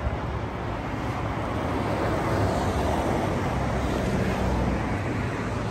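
Road traffic on a multi-lane avenue: cars and a van driving past, a steady rush of tyres and engines that swells a little in the middle.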